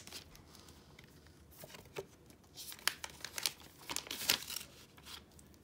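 Plastic binder sleeve pages crinkling and rustling as they are turned and smoothed by hand, in several short irregular spells, loudest a little past the middle.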